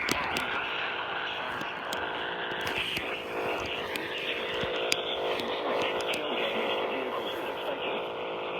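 Emergency alert broadcast of a severe thunderstorm warning heard over a radio: steady static fills the sound, and a voice reading the warning is faintly heard beneath it in the second half.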